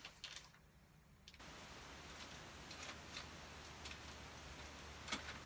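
Faint handling noise of small plastic parts and packaging: soft rustling with a few light clicks, and a sharper click near the end.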